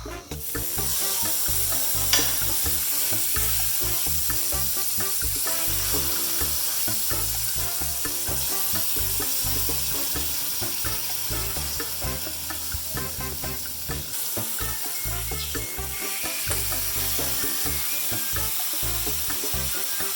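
Steak frying in hot oil in a pan over medium-high heat: a steady sizzle that sets in about half a second in, with a sharp click about two seconds in.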